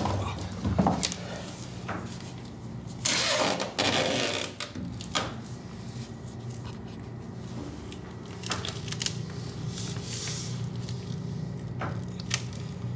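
Plastic sheeting and duct tape rustling and crinkling as they are handled and pressed down by hand, in irregular bursts (the longest about three seconds in) with a few light clicks, over a steady low hum.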